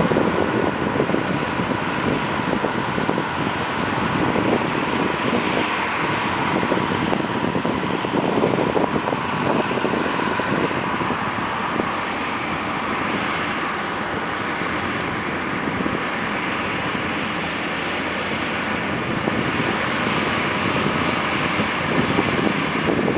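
Heavy diesel machinery running steadily, a constant engine noise with a faint high whine.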